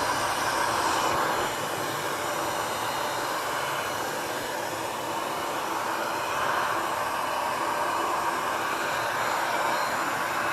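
Queenmade 3-in-1 stick vacuum cleaner running steadily, a constant airy rushing whir with no change in speed.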